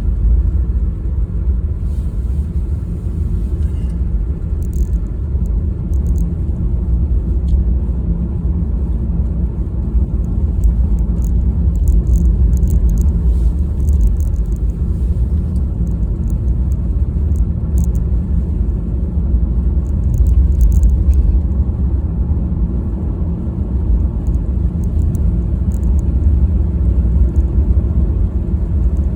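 Steady low rumble of a car on the move: engine and road noise as heard while driving.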